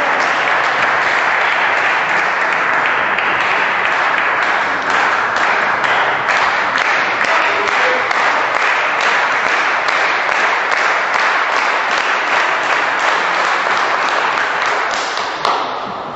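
Spectators in a sports hall applauding after a point, the clapping falling into a steady unison rhythm of about two to three claps a second, then dying away near the end.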